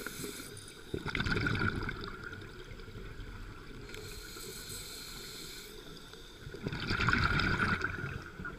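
Scuba diver breathing through a regulator, heard underwater: a stream of exhaled bubbles about a second in, a high hiss of an inhalation around the middle, and another stream of exhaled bubbles starting near the end.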